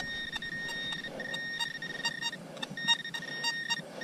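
Metal detector sounding a steady high beep that cuts in and out, signalling a buried metal target in the dug hole. Small clicks and faint scraping from a hand digger in the soil run underneath.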